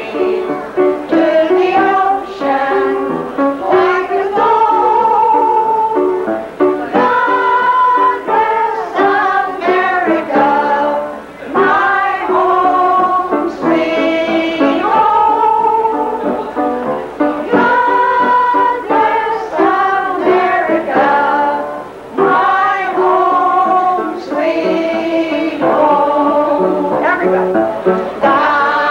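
A kitchen band playing a tune, with a voice-like melody line over plucked strings.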